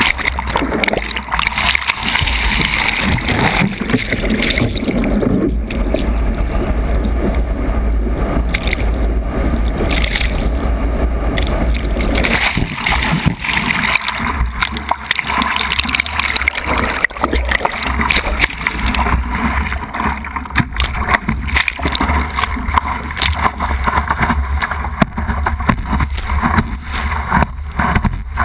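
Water rushing and splashing over the nose of a windsurfing board, with wind buffeting the board-mounted camera's microphone in a steady low rumble. Waves wash right over the camera now and then, giving irregular splashes and gurgles.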